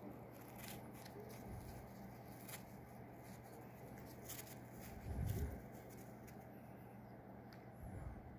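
Quiet room tone with a faint steady hum, light rustling and small clicks, and a soft, muffled low thump about five seconds in, with a smaller one near the end.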